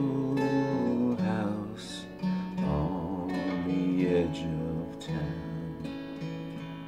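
Acoustic guitar playing slow, held chords that change about every second, with a capo on the neck.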